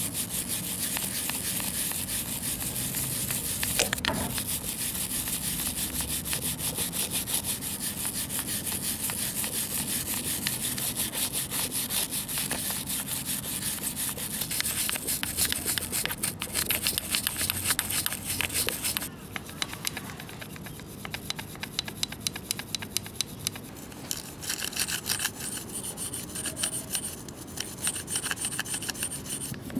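Hand brush scrubbing the grimy metal engine cases of a Honda CBX125 engine in rapid back-and-forth strokes, cleaning it down for polishing. About 19 seconds in, the scrubbing turns quieter, with more spaced-out strokes.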